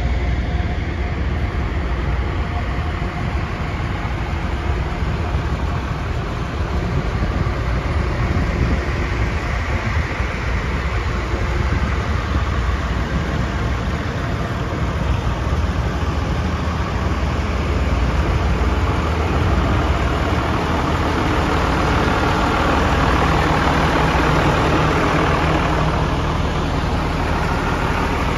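Diesel engine of a 1996 Ford L8000 medium-duty truck idling steadily, a low rumble that grows somewhat louder near the end.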